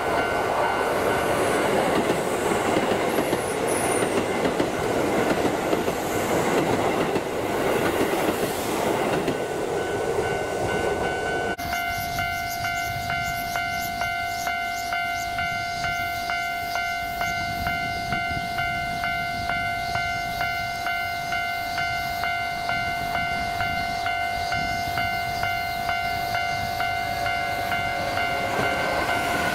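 Keisei 3500-series commuter electric train running past close by, its wheels rumbling over the rails, with a level-crossing alarm ringing in steady, even pulses. About twelve seconds in the train noise stops abruptly and the alarm rings on alone as the next train approaches.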